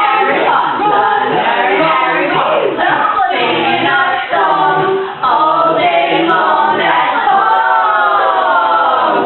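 Several voices singing together, without instruments.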